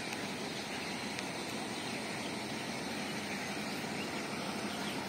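Steady outdoor rural background noise with faint high chirps.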